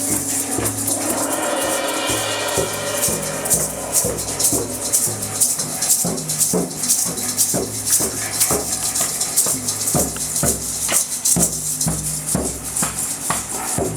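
Rhythmic music with a steady shaken-rattle beat over low pitched notes.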